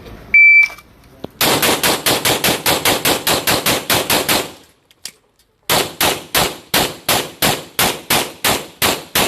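A shot-timer beep, then a pistol fired in a fast string of about fifteen shots over three seconds, three per target. The shots stop for about a second during a magazine reload, then another fast string of shots begins.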